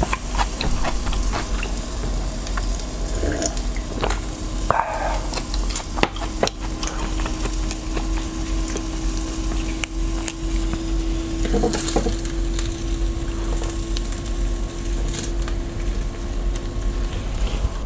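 Meat sizzling on a tabletop grill pan over a portable gas stove: a steady crackling hiss with frequent small pops.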